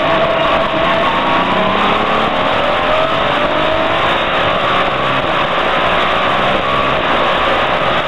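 Touring race car engine heard from inside the car at speed, its pitch sliding up and down a little as the revs change, under a loud steady rushing noise.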